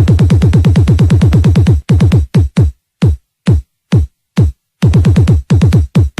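Electronic dance music from a DJ mix: a fast roll of deep drum-machine kicks, each dropping in pitch, about ten a second. A little under two seconds in, it breaks into single kicks and short clusters separated by silent gaps.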